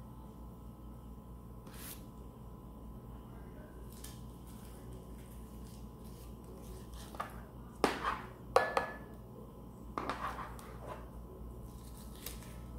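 Utensils and dishes clinking and clattering as cooked sushi rice is scooped out and handled: a few light clicks, then a cluster of sharper knocks between about seven and eleven seconds in, one of them ringing briefly like a plate struck.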